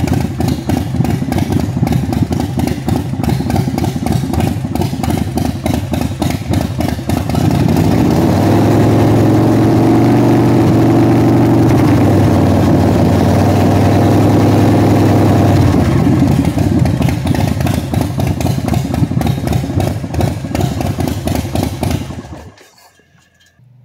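Motorcycle engine idling, then held at a higher steady speed of about 2,000 rpm for roughly eight seconds to load the stator for an AC output test. It drops back to idle and shuts off about a second before the end.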